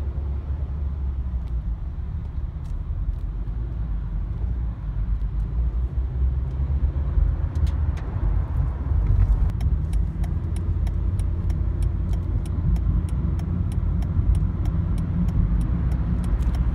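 Road noise inside a moving car's cabin: a steady low rumble of tyres and engine on a wet highway. From about halfway through, light ticks come quickly, about three a second.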